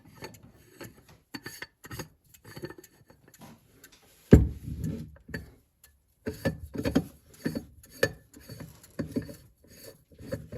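Threaded metal back cover of a Soviet submarine clock being unscrewed by hand: irregular scraping and clicking of metal on metal, with one louder knock about four seconds in.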